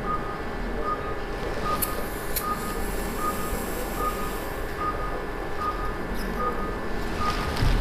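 Operating-room patient monitor beeping with the pulse: a short, even electronic tone repeating about every 0.8 seconds, over a steady hum.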